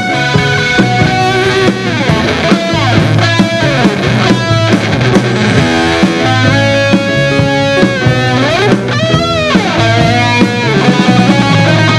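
Live rock band playing an instrumental passage led by electric guitar, with notes bent up and down over bass and drums.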